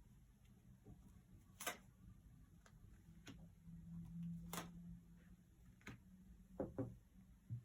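Near silence broken by a few faint, sharp clicks and taps, two of them close together near the end, as tarot cards are handled and laid down; a soft low hum sounds briefly in the middle.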